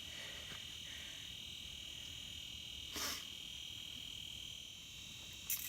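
A steady high-pitched electronic whine with several overtones. A brief rustle comes about three seconds in, and a jangling rattle starts near the end.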